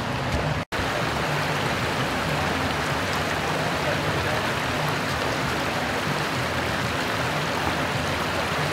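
Floodwater from a broken 16-inch water main rushing along a street and spilling over a curb, a steady rush of water.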